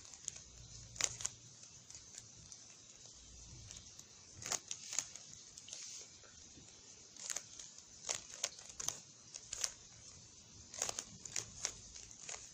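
Rubik's cube being twisted by hand: faint, irregular clicks of its plastic layers turning, coming in small clusters.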